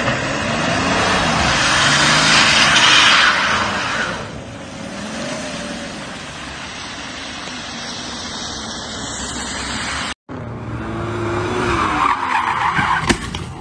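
A car engine revs up and down while its tyres skid and hiss across wet asphalt; the tyre noise is loudest about two to four seconds in. After a short break about ten seconds in, another car revs hard with its tyres squealing.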